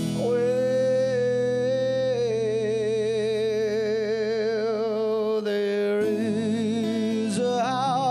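Male voice singing one long held note for about five seconds, wavering with vibrato in its second half, then sliding up into a new note near the end, over an acoustic guitar.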